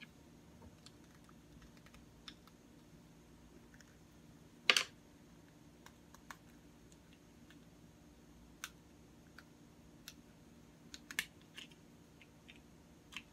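Scattered small plastic clicks and taps from handling a tripod's Bluetooth remote shutter while opening it to put the battery in, with one louder click about five seconds in.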